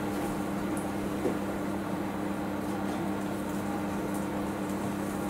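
Steady mechanical hum with two constant low tones under a soft even hiss, and one light knock a little over a second in.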